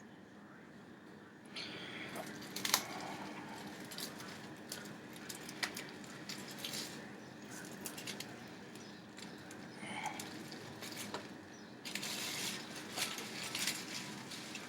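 Kitchen handling noises: scattered light clicks and rustles, starting about a second and a half in, over a faint steady hum.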